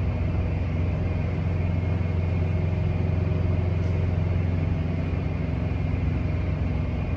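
Steady low rumble of running machinery, with a faint hum over it.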